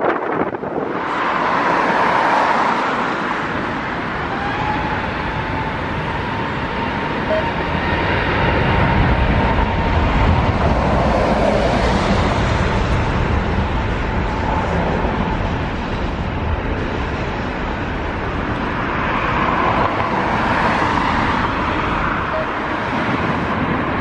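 Jet airliner engine noise that swells and eases, with a faint steady whine through the middle, mixed with gusty wind buffeting the microphone.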